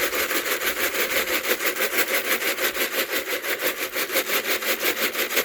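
A motor running steadily with an even fast pulse, about five to six beats a second.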